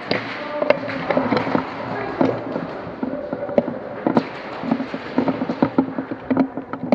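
Airsoft guns firing during a game: scattered, irregular pops and cracks, some single and some in quick runs.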